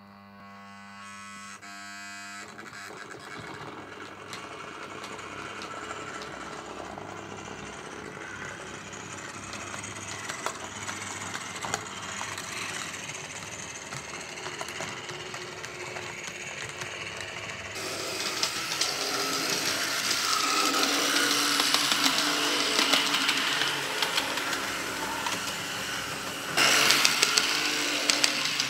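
Model railway railcar running on its track: the small electric motor whirs and the wheels rattle and click over the rails, getting louder as it comes nearer. A steady electric hum is heard for the first two seconds or so.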